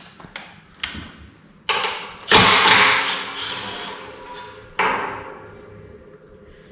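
Sheet-metal clatter from a compressor's belt-guard cage being worked loose and pulled off: a few light clicks, then three loud rattling knocks, the biggest about two seconds in, each leaving a brief metallic ring.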